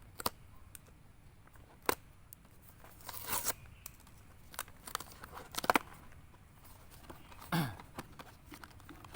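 Packaging of a military field ration being torn open and crinkled, in short bursts of tearing and rustling with several sharp clicks in between, and a brief low falling sound near the end.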